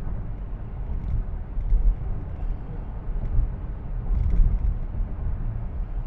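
Steady road and engine noise heard inside a car's cabin while cruising on a highway: a low rumble, with a few faint clicks.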